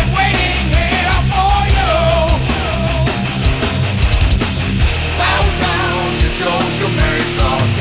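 Loud hard rock music playing continuously as a soundtrack.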